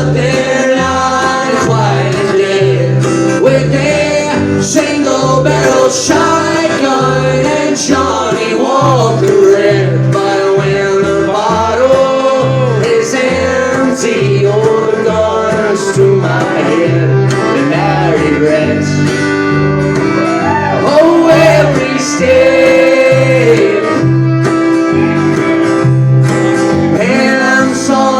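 An acoustic country band playing live: guitar and a plucked bass line keep a steady beat under a wavering melody line.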